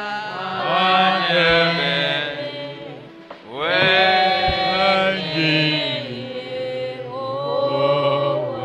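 A man singing a slow prayer chorus in Ewe into a microphone, in long held phrases of a few seconds each; a new phrase begins with an upward slide about three and a half seconds in.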